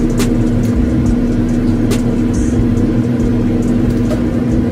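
Steady hum of a small electric motor over an even rush of air, with a few short clicks.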